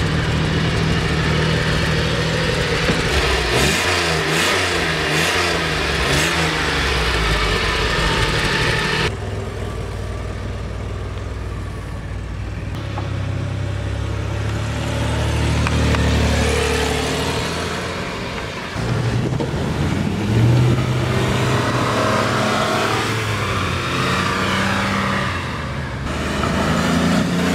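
1981 DeLorean DMC-12's 2.8-litre fuel-injected V6 running through its dual exhaust, revving up and down. The sound changes abruptly between several takes.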